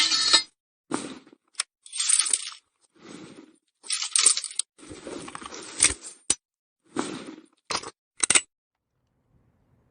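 Handling and loading sounds of a Springfield Model 1861 rifle-musket: about ten short metallic clinks, rattles and scrapes, each separated by a silence. The sounds stop about a second and a half before the end.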